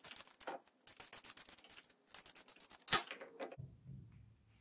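Vegetable peeler scraping down a raw carrot in quick repeated strokes, with one louder stroke about three seconds in; the scraping stops about half a second later.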